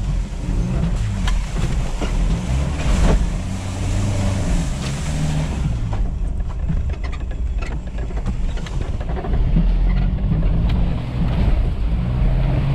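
Toyota Land Cruiser KZJ78's 3.0 L 1KZ-T turbo-diesel engine pulling at low speed on a rough, muddy dirt track, heard inside the cabin, its pitch rising and falling with the throttle. Frequent knocks and rattles come through as the vehicle crosses the ruts.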